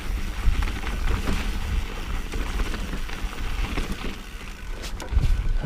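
Mountain bike rolling fast down a rocky dirt trail on Maxxis Recon and Aggressor tyres: steady crunching of tyres over dirt and rock, with scattered knocks and rattles from the bumps.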